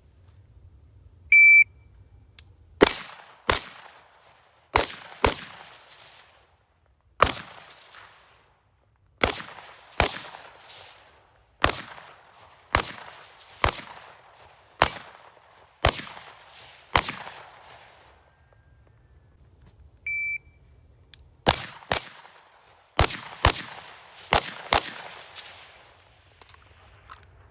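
Rifle drill: a shot-timer beep, then a string of about a dozen rifle shots at uneven spacing of one to two seconds, each with a short echo. A second beep comes about twenty seconds in, followed by a quicker string of about six shots, several in close pairs.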